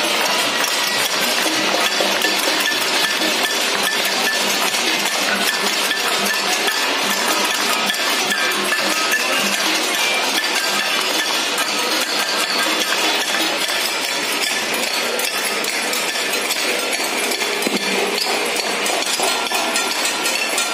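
Many people on surrounding balconies clapping, banging metal plates and ringing bells: a continuous clattering, clinking din that holds steady throughout.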